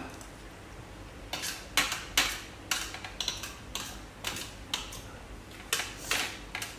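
Eating sounds from a meal of noodles: about a dozen short, irregular clinks and scrapes of utensils against dishes.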